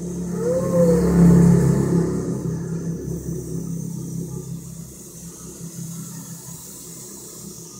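Syma S107 micro RC helicopter in flight: its coaxial rotors and small electric motors give a steady whirring hum that swells about a second in and then fades.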